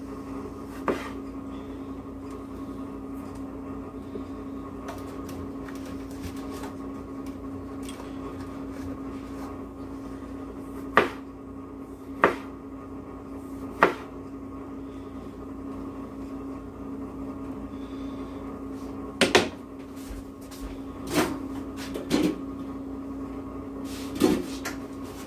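Kitchen clatter: a kitchen knife and plastic containers knocking sharply against a cutting board and countertop, a handful of times, mostly in the second half. A steady electrical hum runs underneath.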